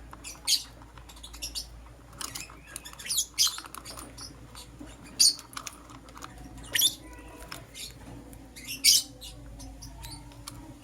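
Lovebirds giving short, sharp, high chirps every second or two, with faint clicking between them; the loudest chirp comes near the end.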